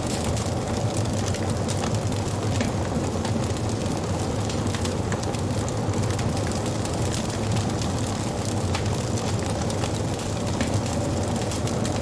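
Wood fire crackling: frequent sharp pops and snaps over a steady low rumble.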